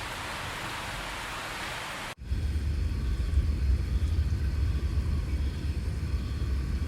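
Steady rain hiss, then an abrupt cut about two seconds in to a louder, deep rolling rumble of thunder that swells and fades irregularly.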